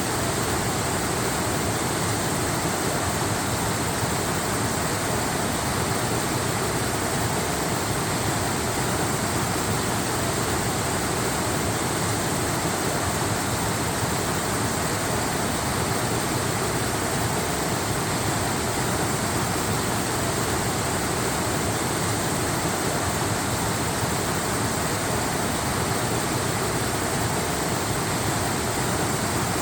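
Waterfall rushing: a steady, even wash of falling water with no changes.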